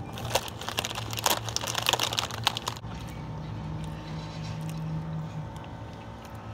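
A chip bag crinkling and chips being crunched: a dense run of crackly clicks over the first three seconds, then sparser, over a steady low hum.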